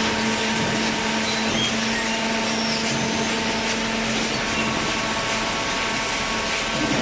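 Hydraulic baler running, with a steady motor-and-pump hum and a constant noise of machinery.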